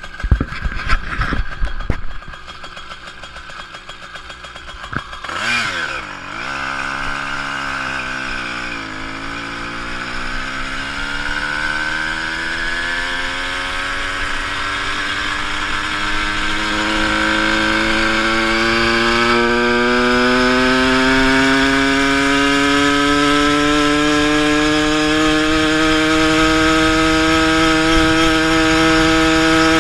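A motorized bicycle's small engine running under way. Its pitch drops and recovers between about five and nine seconds in, then climbs steadily as the bike gathers speed. A few sharp knocks in the first two seconds.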